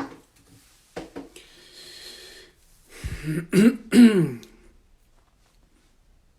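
A person clearing their throat: two loud voiced throat-clears with falling pitch in the second half, after a click and a short breathy hiss.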